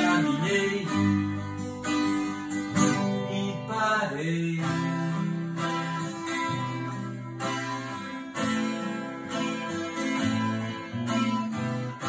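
Two acoustic guitars playing an instrumental passage together, with strummed chords under picked melody notes.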